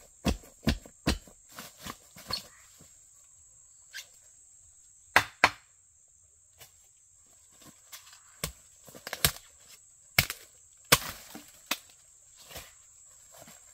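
Sharp chopping strikes of a blade cutting into a bamboo shoot. There are three quick blows near the start, a close pair midway, then several more spaced out later on, the loudest of them toward the end.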